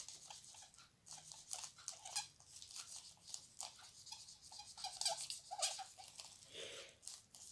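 Writing by hand with a pen: a run of faint scratchy strokes, with a few short squeaks about five seconds in.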